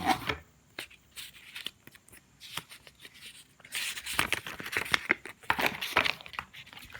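Speaker packaging being handled: scattered light clicks and knocks, then a longer stretch of rustling and crinkling paper and plastic in the middle as accessories and papers are pulled out of the box.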